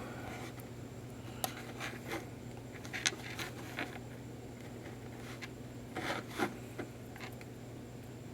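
Faint handling of small plastic connectors: a few light clicks and scrapes as a 6-pin PF13 connector is fitted against a power module's plug, over a low steady hum.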